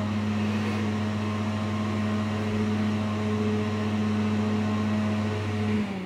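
Bathroom exhaust fan, a small mains-powered axial fan, running steadily with a hum and a rush of air. About five and a half seconds in its power cuts off and the pitch starts to fall as the blades wind down. The humidity controller has switched it off because the humidity has cleared.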